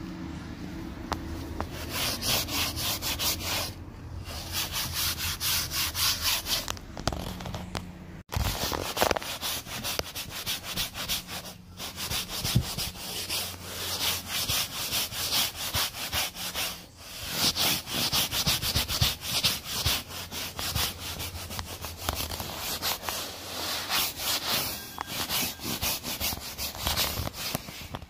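Hand upholstery brush with a wooden handle scrubbing a fabric sofa cushion in quick back-and-forth strokes, with a few brief pauses.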